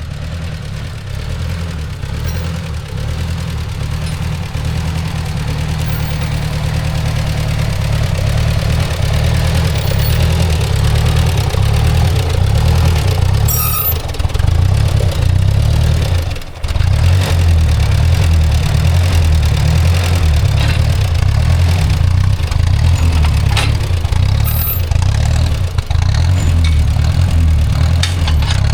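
Ford Jubilee tractor's four-cylinder gasoline engine running steadily while it pulls a plow through potato rows. It grows louder over the first dozen seconds and dips briefly about sixteen seconds in.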